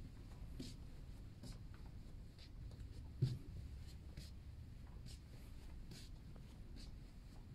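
Faint footsteps scuffing on carpet tiles at a steady walking pace, a little over one step a second, with a single low bump a little over three seconds in.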